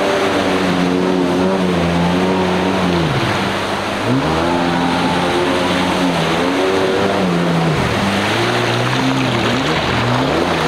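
2001 Yamaha GP800R jet ski's two-stroke twin running hard on the water, over the hiss of spray. Its pitch drops sharply and climbs back three times as the throttle is let off and opened again. It runs without cutting out, the fuel starvation having been put down to low fuel and cured by switching to the reserve tap.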